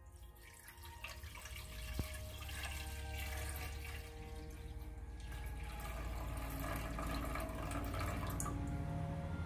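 Water pouring in a steady stream from a steel bowl into a clay pot: the millet's soaking water being drained off into the cooking pot.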